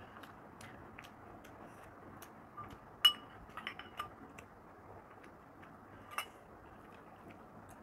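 Steel serving spoon clinking against a glass bowl: one sharp ringing clink about three seconds in, a few lighter taps just after, and another clink a little after six seconds.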